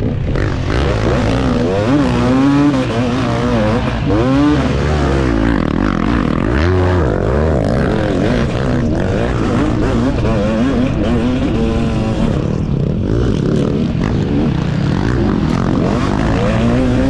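KTM 250 two-stroke motocross bike engine racing, its pitch rising and falling again and again as the rider revs through gears and backs off for corners, heard from on the bike itself.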